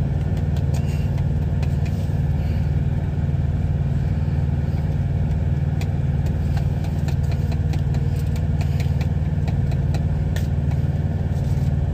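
A semi truck's diesel engine idling with a steady low drone, heard inside the cab, with light clicks and scrapes of a wire whisk working mashed potatoes in a foil pan.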